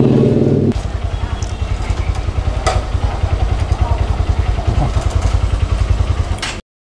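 A motor vehicle engine idling with a fast, even low throb. It cuts off abruptly near the end.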